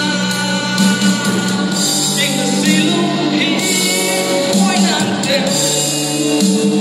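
A man singing live into a handheld microphone over backing music.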